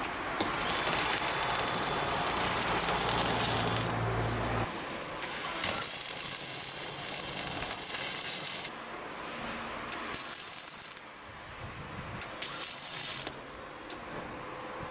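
Arc welding on stainless steel: the welding arc hisses in on-off runs as each bead is laid, first a long run of about four seconds, then one of about three and a half seconds, then two short runs of about a second each.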